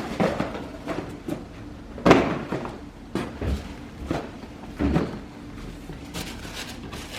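Cardboard shoeboxes being handled: a series of short knocks and scrapes as box lids are opened and closed and boxes are moved, the loudest about two seconds in.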